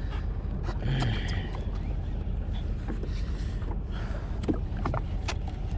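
Steady low rumble of a boat engine on the water, with scattered light clicks and knocks.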